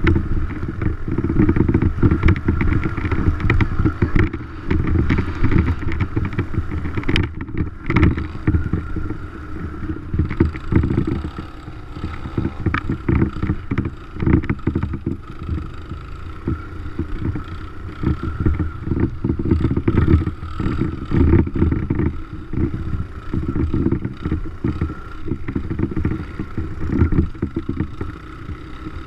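Dirt bike running while being ridden, its engine note rising and falling unevenly, with wind buffeting the microphone.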